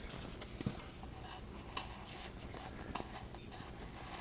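Hobby knife cutting a slit through foamcore board: faint, irregular scratching with a few small clicks.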